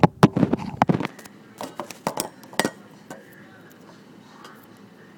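Handling noise: a quick run of sharp clicks and light clinks in the first second, a few more clicks over the next two seconds, then quiet room tone from about three seconds in.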